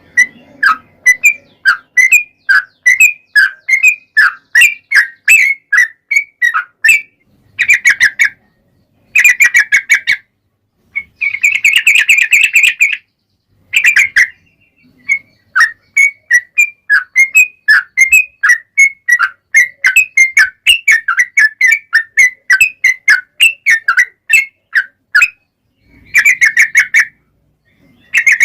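Yellow-vented bulbul (trucuk) singing vigorously: long runs of quick, bubbly, whistled notes broken by short pauses, with a denser chattering rattle about twelve seconds in.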